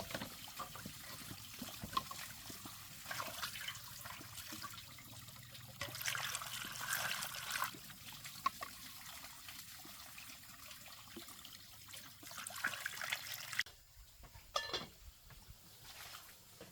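Water being poured and trickling into a cooking pot, heaviest in the middle, then stopping abruptly near the end, with a few light knocks after.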